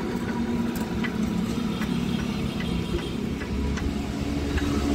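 Motor vehicle engine and road traffic running steadily, with a low hum that swells about three and a half seconds in.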